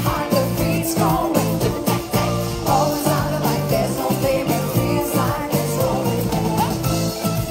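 Live pop music: a woman singing into a microphone over a band with a steady beat.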